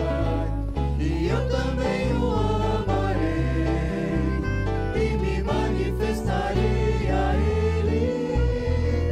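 Christian worship song: voices singing a melody over instrumental accompaniment with a steady, stepping bass line.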